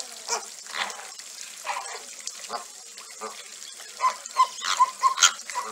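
Greater flamingos calling in short nasal honks and grunts, one every half second or so, with a quick run of calls from about four seconds in, over the splashing and dabbling of birds feeding in shallow water.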